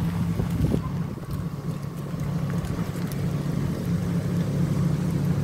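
An engine idling steadily with an even low hum, with a few light knocks in the first second.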